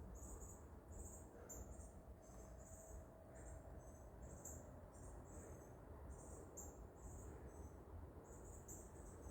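Faint, high-pitched insect chirping, short chirps repeating about two to three times a second over a low background rumble.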